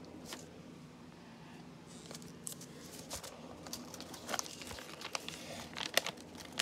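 Faint scattered rustles and small taps of a sheet of paper being folded and creased by hand, with more of them in the last couple of seconds.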